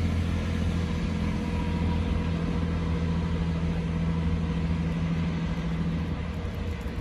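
GWR Class 165 Turbo diesel multiple unit pulling away from the platform, its underfloor diesel engines running with a steady low drone. One of the engine tones drops away about six seconds in.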